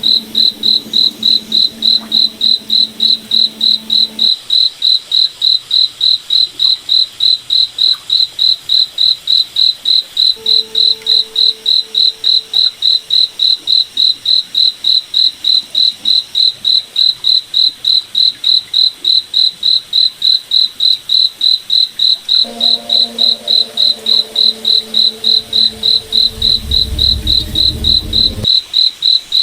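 Cricket chirping steadily in a fast, even rhythm, about three high chirps a second. A faint low hum fades in and out underneath.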